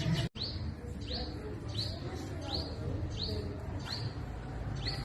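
Purple sunbird calling: a run of short, high, sharp chirps, roughly three every two seconds, coming a little closer together near the end.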